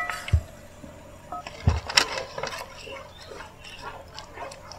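A ladle stirring thick beetroot payasa in an aluminium pan: soft irregular scraping and clicks, with two dull knocks in the first two seconds.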